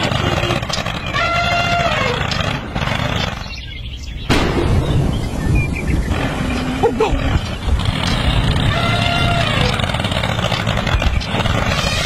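Tractor engine running steadily, its rumble dipping briefly and cutting back in abruptly about four seconds in. Two drawn-out pitched calls sound over it, about a second in and again near the end.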